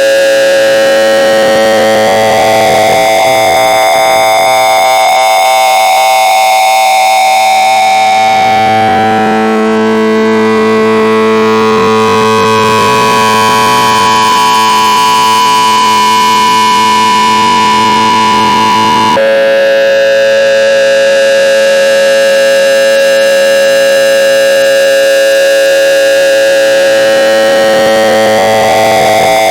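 Loud, harsh electronic tone made of several steady pitches stacked together over a hiss, slowly shifting in pitch, then jumping abruptly to a different chord about nineteen seconds in.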